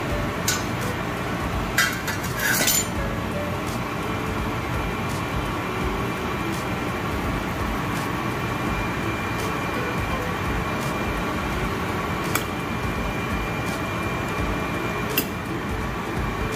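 A few sharp clinks of a utensil against cookware, a quick cluster about two seconds in and single clinks later, over a steady background hum.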